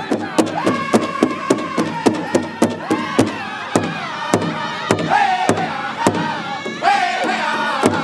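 Northern-style powwow drum group: several men singing in unison at a high pitch over a large shared bass drum struck together with sticks, about three beats a second. The beat spaces out around the middle, with the voices rising to high calls twice, and picks back up near the end.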